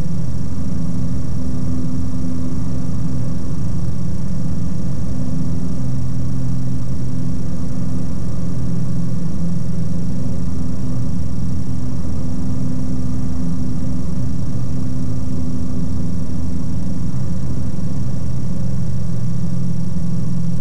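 Ikarus C42 microlight's engine and propeller droning steadily in flight shortly after takeoff, an unchanging low hum with a faint high whine above it.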